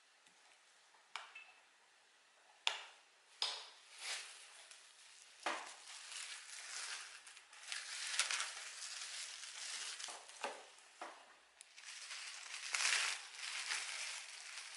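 A kitchen utensil scraping and knocking against a dish or container, with sharp clicks between longer stretches of crunchy scraping.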